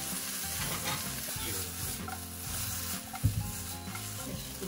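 Starch-dusted black tiger prawns sizzling in hot oil in a nonstick frying pan, stirred and turned with chopsticks as their surface crisps. There is a single sharp knock about three seconds in.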